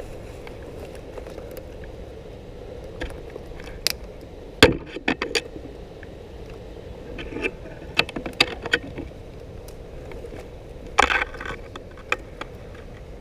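Handling and movement noise from an airsoft player's kit: scattered clicks, knocks and scrapes over a steady low rumble, with a sharp knock about four and a half seconds in and small clusters of clicks later on.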